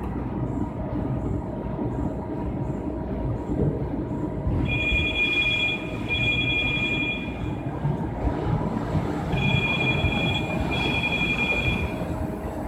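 MAN Roland 700 sheet-fed offset printing press running with a steady mechanical rumble. A high electronic beeper sounds two pairs of long beeps over it, the first pair about five seconds in and the second about nine seconds in.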